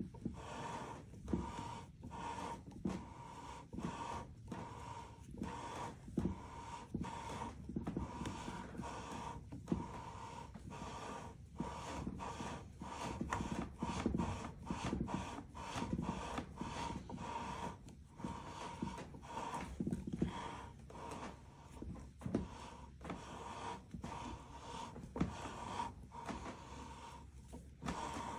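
Scope-ring lapping bar being worked back and forth inside the rings with abrasive lapping compound: a gritty metal-on-metal rubbing in steady, repeated strokes, roughly one to two a second.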